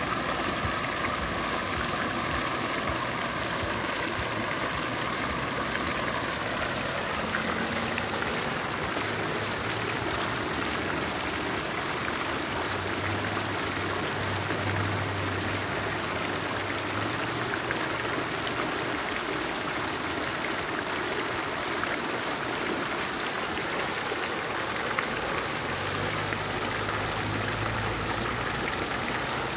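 Fountain jets splashing steadily into a stone basin: a tall central jet and a ring of arching jets falling onto the water. A faint low hum comes in twice, midway and near the end.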